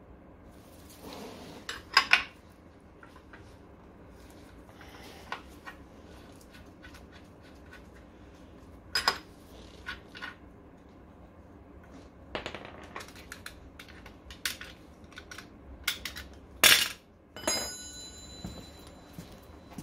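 Metal tools and parts knocking and clinking as they are handled and set down during hand repair work on a scooter hub motor. There are scattered light clicks, two loud knocks about two seconds in, and a sharp clank near the end followed by a briefly ringing metal clink.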